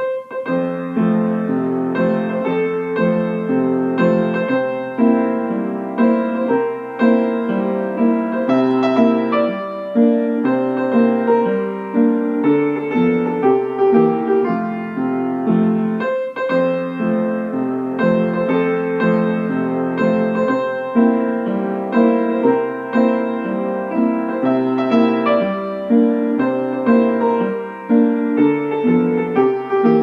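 Background piano music: a gentle piece of evenly paced notes that plays on without a break.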